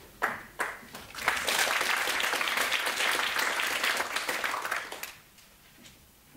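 Audience applauding, a dense patter of many hands that swells about a second in and dies away after about four seconds, preceded by two sharp knocks.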